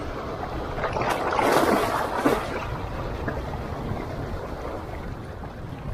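Shallow sea waves sloshing around the wader with wind rumbling on the microphone; a louder wave splash surges about a second in, with a sharp click in it.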